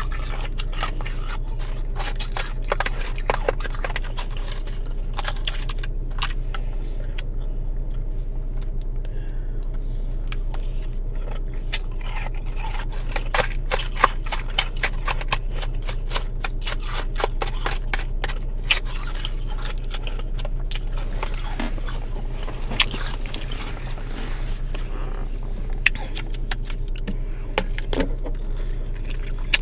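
Mouthfuls of powdery freezer frost being chewed: many short crisp crunches and crackles, with a steady low hum underneath.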